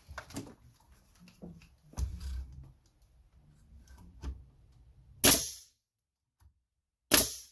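Pneumatic nail gun firing twice, about two seconds apart, each shot a sharp bang with a short hiss of air, driving nails into a 2x4. Before the shots there are light knocks of the wood being positioned.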